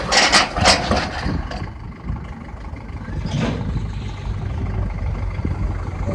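Tractor engine running steadily with a low pulsing rumble, with a couple of brief noisy bursts near the start and another about three and a half seconds in.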